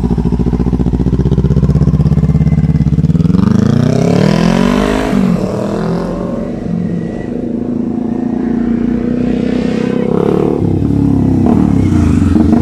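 Kawasaki Z400's parallel-twin engine running through an aftermarket slip-on exhaust. It holds steady at first, then revs up in a rising pull about three seconds in, drops back, and climbs again near the end.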